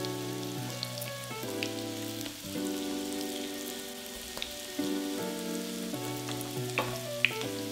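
Dough frying in vegetable oil in a pan: a steady sizzle with scattered small pops. Background music with held chords plays over it.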